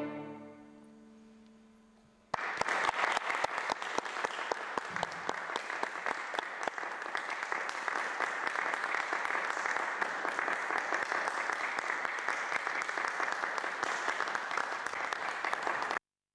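The string quartet's final chord rings on in the hall's reverberation and fades away. About two seconds in, audience applause starts suddenly, carries on steadily, and cuts off abruptly just before the end.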